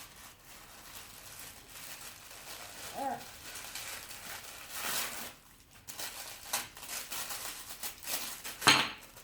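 Packing paper crinkling and rustling as a toy is unwrapped, with scattered handling clicks and a louder crackle near the end.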